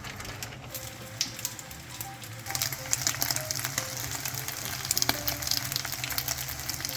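Dumplings pan-frying in oil: a steady crackling sizzle that grows louder about two and a half seconds in, with faint background music.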